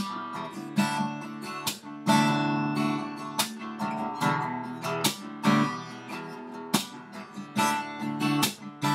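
Acoustic guitar strummed, chords ringing between sharp strokes that come one or two a second.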